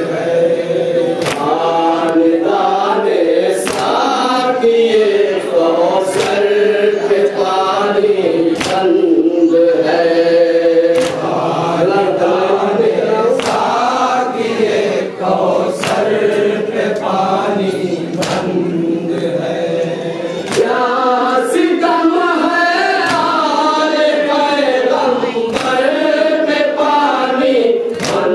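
A group of men reciting a noha, a Shia mourning lament, in chorus. The melody wavers in long phrases, and a sharp beat falls every one to two seconds.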